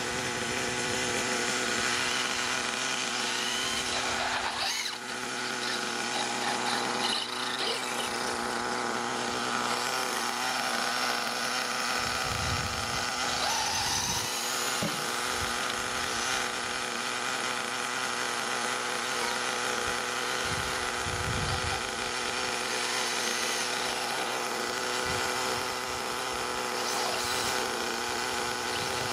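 HPI Savage XL 5.9's small nitro engine running steadily at a fast idle on the stand, breaking in a tank of fuel. A few dull low bumps come through about four, twelve and twenty-one seconds in.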